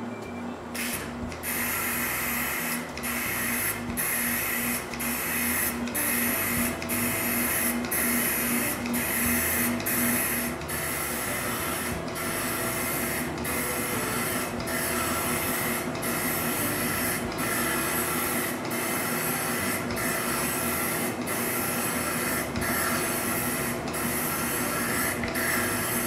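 Aerosol spray can of lacquer hissing in short back-and-forth passes, with a brief break about once a second as the spray is released and pressed again: a first coat of lacquer going onto a wooden panel.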